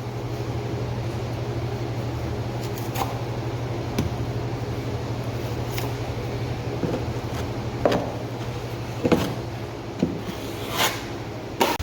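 Drywall knife spreading joint compound over a drywall patch: a series of short, separate scraping strokes over a steady low hum.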